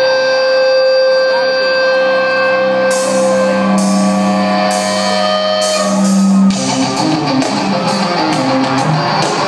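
Rock band playing live in an arena, heard through a phone's microphone from the stands. It opens on long held guitar chords over a sustained low note. About six and a half seconds in, the full band comes in, denser, with regular cymbal strokes.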